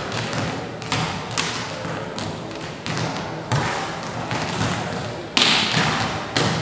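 Volleyballs being struck and landing on a sports-hall floor: irregular sharp thuds, about one or two a second, each with an echoing tail from the large hall, and a louder, longer burst near the end.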